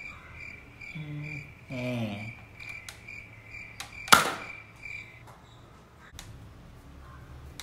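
Nerf Elite Disruptor blaster firing a dart: one sharp snap with a brief whoosh about four seconds in, the loudest sound. Around it a high chirping tick repeats about twice a second, stopping about a second after the shot.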